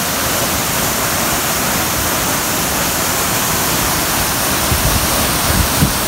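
A tall waterfall plunging into a pool, heard up close: a loud, steady rush of falling water.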